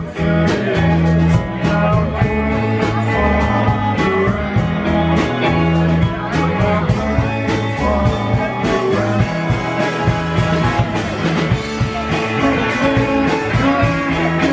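A rock band playing live: electric guitars over a steady drum beat.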